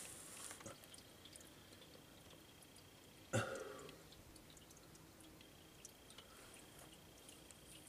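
Transmission fluid dripping and trickling faintly out of a tipped automatic-transmission pan, with one short thump about a third of the way in.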